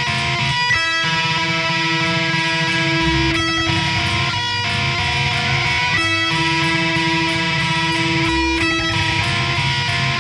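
Hard rock band playing live, led by an electric guitar riff that repeats about every two and a half seconds, with a sharp hit at the start of each round.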